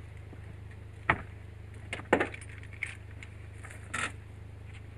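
A few sharp metallic clinks and a short jingle from the metal hardware of a dog's leash and collar as the dog is handled: one about a second in, two close together at about two seconds, and a ringing jingle at about four seconds, over a low steady hum.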